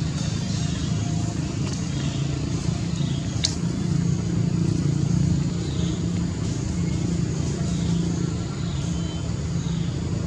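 Steady low motor hum, a little louder about four to five seconds in, with a single sharp click about three and a half seconds in.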